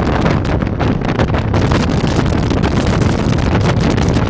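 Wind buffeting the microphone of a fast-moving open jet boat, over the steady noise of the boat's engine and the rushing river water.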